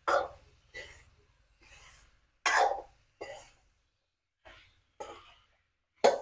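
Wooden spatula stirring diced potatoes in an aluminium kadai: a series of short scraping strokes of uneven strength, the loudest a few seconds in.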